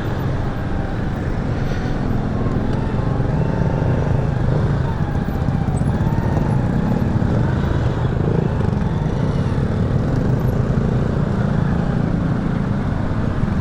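Motorcycle engine running at low speed amid the steady hum of traffic in a jam.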